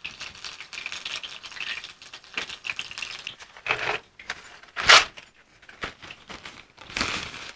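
Chickpea-flour-battered onion rings deep-frying in hot oil, sputtering and crackling with several sharp pops, the loudest about five seconds in. The spluttering is water in the batter on the freshly turned side boiling off, a sign the rings are still cooking and crisping.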